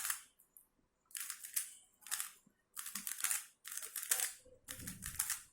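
MoYu RS3M 2020 magnetic 3x3 speedcube being turned quickly by hand: plastic layers clacking in five short runs of turns, with brief pauses between them.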